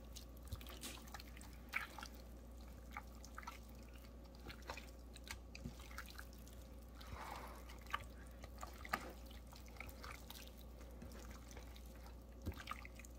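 Hands squishing a thick ginger-lemongrass marinade paste into raw chicken thighs: faint, irregular wet squelches and sticky smacks, with a couple of sharper smacks about eight and nine seconds in.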